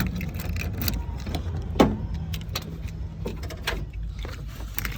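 A car's low steady hum with scattered clicks and knocks, the sharpest knock about two seconds in.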